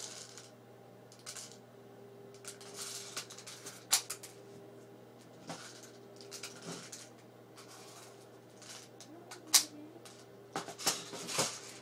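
A few sharp clicks and knocks, the loudest about two-thirds of the way through, with quieter handling noises between, over a faint steady hum: a single-shot airsoft rifle being fired, with BBs striking and ricocheting around a paper towel roll target.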